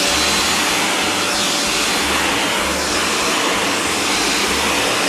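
TurboVac Pro handheld vacuum cleaner running steadily at full speed, a motor whine under loud rushing air, as it is pushed over a carpet.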